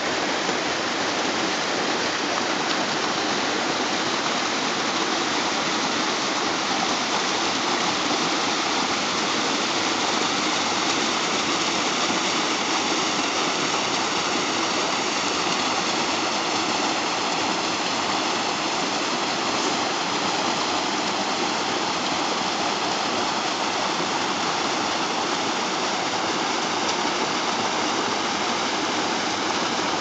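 Small waterfall and shallow rocky stream running, a steady rush of water.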